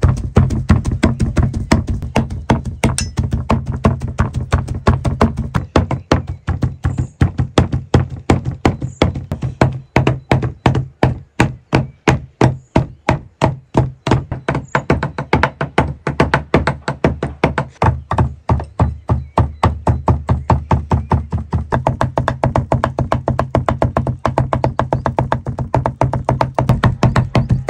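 Two large knives chopping raw sheep offal on a wooden cutting board in a rapid, steady rhythm of sharp knocks with a dull thud from the board, mincing the meat fine.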